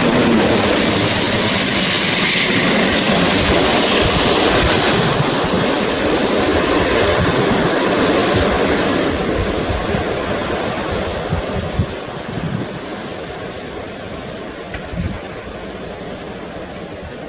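Airbus A350-900 airliner on final approach passing low overhead, the jet noise of its Rolls-Royce Trent XWB engines loud with a strong hiss, then fading steadily from about five seconds in.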